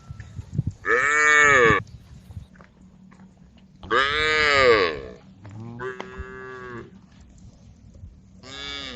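Cows mooing to the herd: four long calls, each rising and then falling in pitch. Two loud moos come about a second in and about four seconds in; two fainter ones follow, the last near the end.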